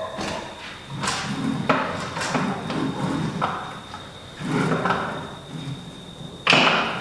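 Clunks, clicks and knocks of a sliding compound mitre saw being handled and set for an angled cut, coming at irregular moments. The loudest is a sharp knock with a short clatter near the end; the saw's motor is not running.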